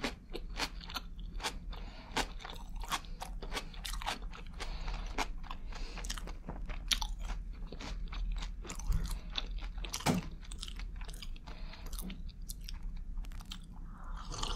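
A person chewing crunchy food with the mouth close to the microphone: a rapid, uneven string of crisp crunches and bites.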